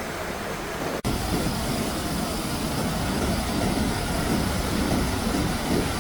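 Steady rushing noise of water, heavy and low. It breaks off for an instant about a second in and comes back louder.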